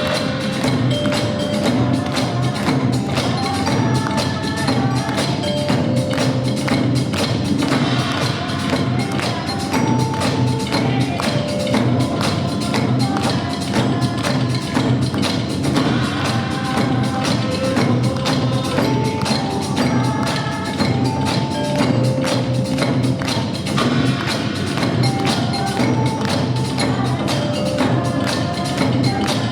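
Nanta percussion: drums and sticks struck in a fast, even rhythm, over backing music with a simple repeating melody.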